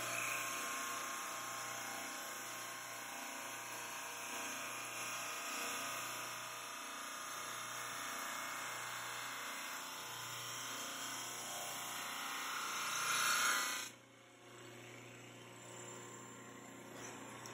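Supermax 16-32 drum sander running and sanding a wooden board as the conveyor feeds it through: a steady rushing sanding noise over a low motor hum. About 14 s in, the sanding noise falls away sharply, leaving a quieter hum.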